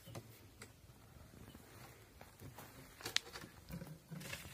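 Faint rustling and scattered small clicks and scrapes, with one sharper click about three seconds in.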